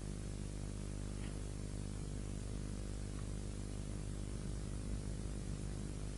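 Steady hiss with a low electrical hum underneath, from an old tape transfer. Two very faint ticks, about a second and three seconds in, are the only things that stand out.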